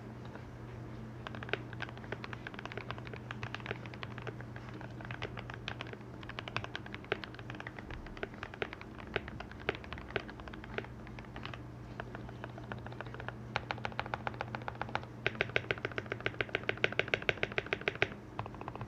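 Typing on a Keychron K4 mechanical keyboard with lubed and filmed Gateron Red linear switches, foam-dampened and tape-modded: a stream of keystroke clicks that quickens about two-thirds of the way through into fast, even presses, then eases near the end. A low steady hum runs underneath.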